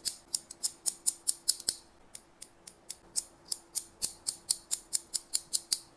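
Hair-cutting scissors snipping through hair in quick, even strokes, about four to five a second, with a brief pause about two seconds in.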